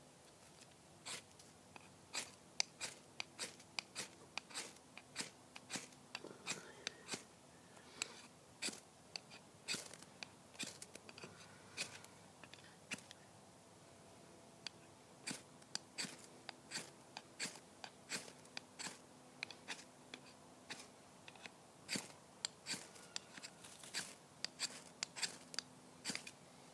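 Ferrocerium rod scraped repeatedly with a knife to strike sparks for lighting tinder: short, sharp rasping strokes in quick runs of about two to three a second, broken by a few short pauses, one of them about halfway through.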